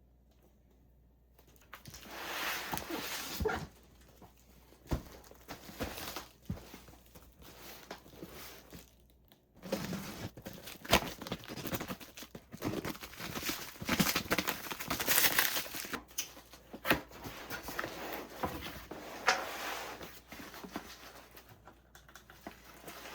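Parcels of fireworks being unpacked by hand: irregular rustling, crinkling and tearing of packaging with sharp knocks as boxes are handled, starting after a second or so of near silence.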